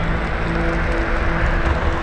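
Onewheel electric skateboard rolling over asphalt: a steady rumble of the wheel on the road with wind noise on the microphone.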